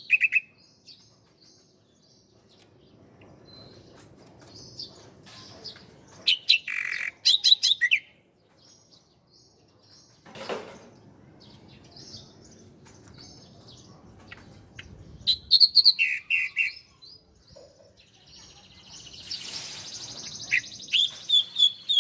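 Ciblek (bar-winged prinia) singing in loud bursts of fast, repeated high chirping notes separated by quieter gaps. A single dull knock comes about halfway through, and a brief rushing noise just before the last burst.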